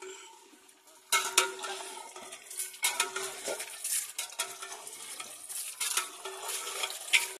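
A long metal stirring rod scraping and clinking against the side of an aluminium deg as chunks of meat are stirred in their hot fat, with a frying hiss underneath. The stirring starts about a second in and goes on in repeated strokes with sharp clinks.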